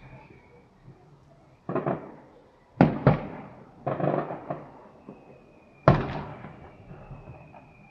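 Aerial fireworks bursting overhead: four sharp bangs a second or two apart, each dying away in a fading tail, with some crackle after the third. A thin high whistle sounds over the last bang.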